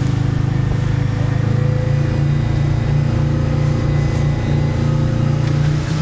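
Motorboat engine running steadily at a constant speed, one even engine note over a wash of noise.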